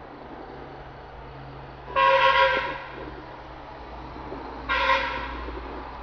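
Two loud honks of a horn, the first about two seconds in and lasting under a second, the second shorter, near the end, over a steady low hum.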